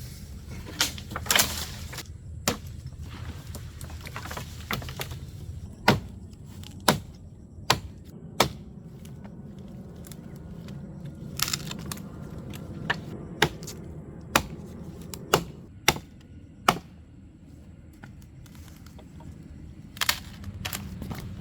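A series of sharp knocks or strikes, irregularly spaced at roughly one a second, with a pause of a few seconds before a last strike near the end, over a steady low rumble.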